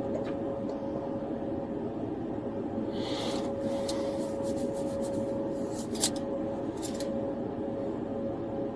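Steady hum of a police car's cabin, with a constant whine in it. About three seconds in comes a stretch of rustling and small clicks, with one sharper click about six seconds in.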